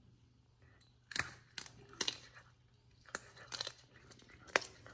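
Serval biting and chewing a raw quail held in a hand: a run of sharp crunches and tearing, several over a few seconds, the loudest near the end.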